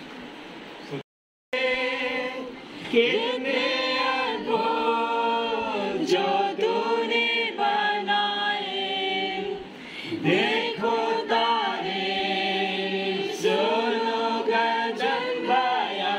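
A small group of men and women singing a hymn together, unaccompanied, with held notes in several voices. The singing starts after a brief dead-silent break about a second in.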